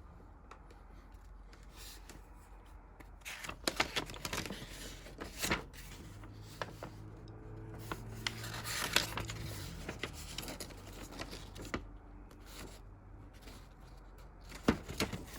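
Plastic model kit parts and packaging being handled: scattered light clicks and rustling, busiest in the middle and again near the end.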